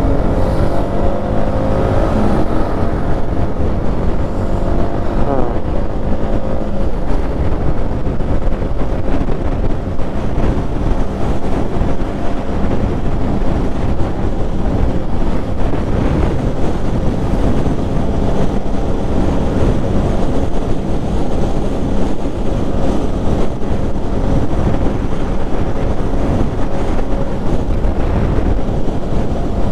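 Yamaha MT-15's 155 cc single-cylinder engine under way. Its pitch rises in the first few seconds as the bike pulls up through the gears, and then it runs steadily at cruising speed in sixth, with wind rushing over the helmet microphone.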